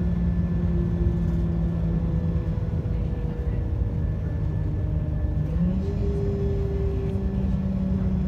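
Class 172 Turbostar diesel multiple unit heard from inside the passenger saloon: the underfloor diesel engine and transmission drone steadily over rumbling wheels on the track, the hum's pitch sagging and then stepping up around six seconds in.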